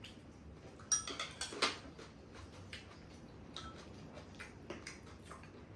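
Irregular light clicks and clinks of a spoon against a rice bowl during a meal, with a louder cluster of taps about a second in.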